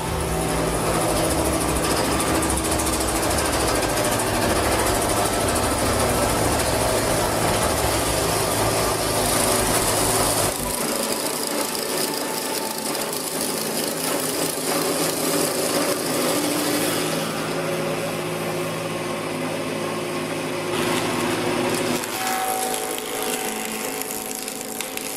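Log-house milling machine's rotating cutters biting into a round timber log, a loud, dense cutting whir with chips thrown off. The sound changes abruptly about eleven seconds in, as the cutter bores the corner notch, and again near the end, as the lengthwise groove is milled.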